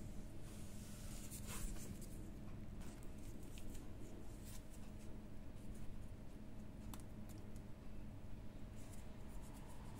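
Quiet indoor room tone: a steady low hum with a few faint scattered clicks and a brief rustle about a second and a half in.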